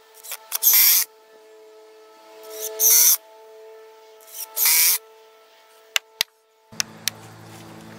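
Power drill driving screws into pine lumber braces: three short whirring bursts, each about half a second, then two sharp hammer knocks on wood about six seconds in.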